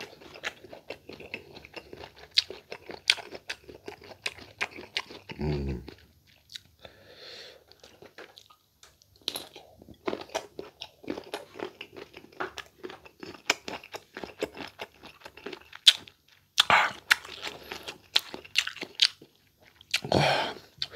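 Close-up crunching and chewing of raw green mango slices in a sauce, with crisp crunches throughout. There is a short hummed sound about five seconds in and again near the end, and a louder breathy sound shortly before the end.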